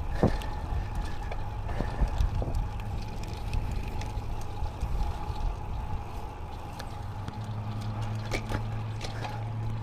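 2006 Cervelo Soloist Team road bike rolling on pavement, with a steady low rumble of tyre and wind noise and scattered small clicks and knocks from the bike over the road. A steady hum grows stronger about seven seconds in.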